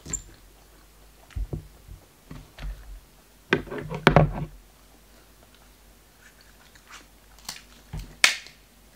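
Clicks and crackles of cooked king crab shell being handled, with a louder cluster of crunchy sounds about halfway through. Near the end comes a sharp crunch as kitchen shears bite into a king crab leg.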